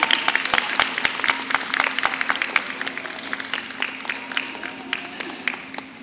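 A small crowd clapping, loudest at first and thinning out until it stops near the end, over a steady low hum.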